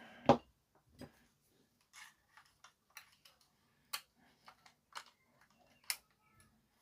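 Light clicks and taps of the plastic toy bubble gun being handled, roughly one a second, the sharpest just after the start.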